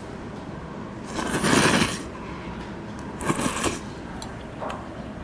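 A person slurping noodles from a bowl of beef noodle soup: two long, noisy slurps, the first and louder about a second in, the second about three seconds in, and a short one near the end.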